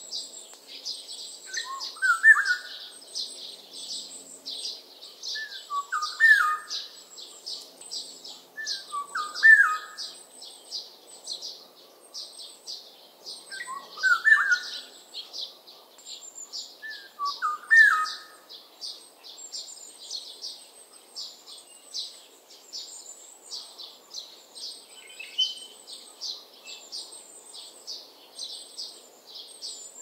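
Black-naped oriole singing short whistled phrases, five in the first eighteen seconds, then falling silent. Constant high-pitched twittering of other small birds runs underneath.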